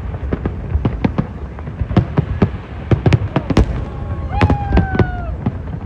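Fireworks going off: a rapid, irregular string of sharp bangs and pops, several a second. A short pitched tone with a slight fall cuts in about four and a half seconds in.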